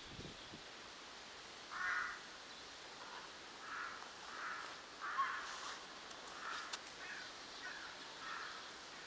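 An animal's short, harsh calls repeated in a series, about nine of them, one every half second or so, starting about two seconds in.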